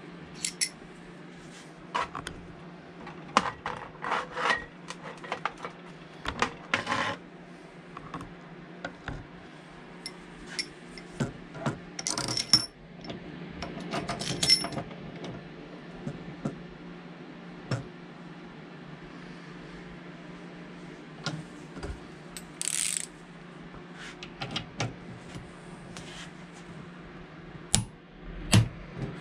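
Irregular clinks, taps and knocks of small steel parts as a diesel injector is handled, clamped in a vise and fitted with a socket on its nozzle nut, with a few metallic rings. A steady low hum runs underneath.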